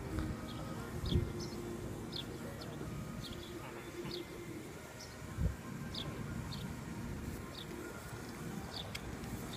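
A small bird chirping over and over outdoors, short high notes about one to two a second, over a low steady background hum. Two soft thumps come about a second in and about five and a half seconds in.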